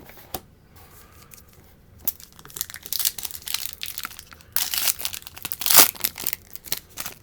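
Foil trading card pack wrapper being crinkled and torn open by hand: irregular crackling that starts about two seconds in and grows loudest past the middle.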